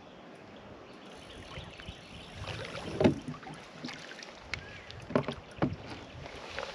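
Water splashing as a large hooked speckled trout thrashes at the surface beside the boat: one loud splash about three seconds in, then two more about half a second apart near the five-second mark.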